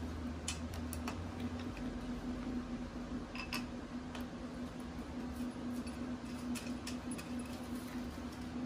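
Irregular light clicks and taps of metal screws and chair parts being handled and tightened during gaming-chair assembly, over a steady low hum.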